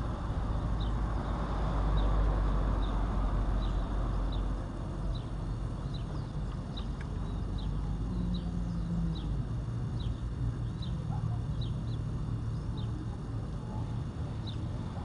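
A bird repeats a short, high, falling chirp about once or twice a second, over a steady low rumble of wind.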